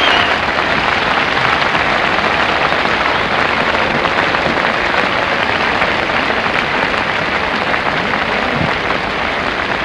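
Large tennis crowd applauding steadily, a dense sustained clapping that holds at one level without letting up.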